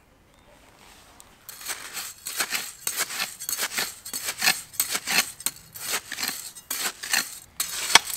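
A hand tool scraping and digging through coarse crushed-stone gravel: repeated crunching, scraping strokes, irregular at about two or three a second, starting about a second and a half in.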